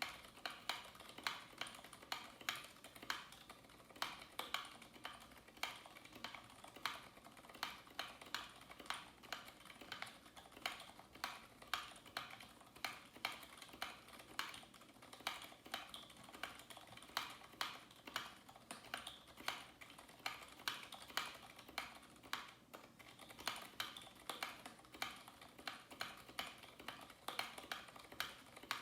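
Continuous typing on a mechanical keyboard: a steady run of key clicks with louder strikes several times a second.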